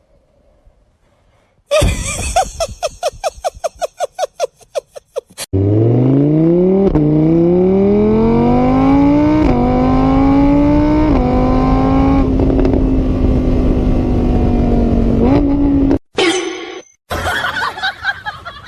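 Car engine accelerating hard: its pitch climbs steadily with a few short steps, like gear changes, then holds level for several seconds before cutting off. Before it comes a burst of rapid pulses that slow and fade.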